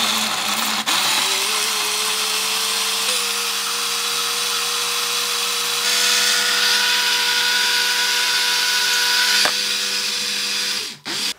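Morphy Richards personal blender's motor blending a smoothie of fruit, seeds and milk. It spins up over the first second to a steady whine, runs at full speed, and cuts off near the end.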